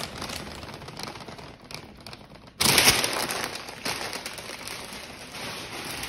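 Paper bag rustling and crinkling in someone's hands, faint at first, then suddenly much louder about two and a half seconds in before slowly dying down.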